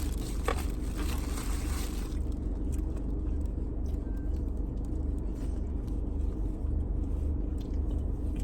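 A steady low rumble, with the scraping, crunching sounds of eating from a takeout plate during the first two seconds.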